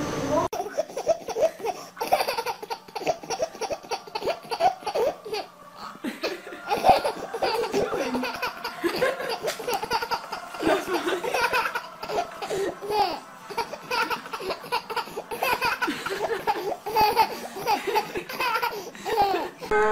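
A baby laughing hard in short repeated peals.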